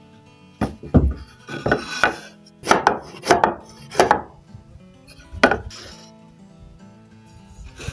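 A series of hard knocks and clatters, about ten, as the board and tools are handled and set down on the router table, bunched in the first four seconds with one more about five and a half seconds in.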